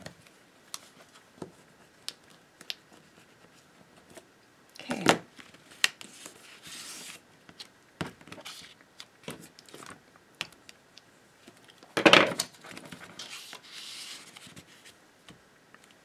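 Paper and cardstock being handled on a cutting mat: light taps and ticks, with two louder rustles about five and twelve seconds in, each followed by a second or two of sliding hiss.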